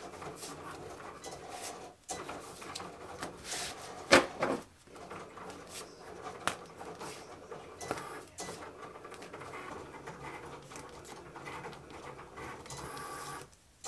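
Paper sticker sheets being handled and flipped through while being counted, giving soft rustles and small taps, with one sharper slap or knock about four seconds in.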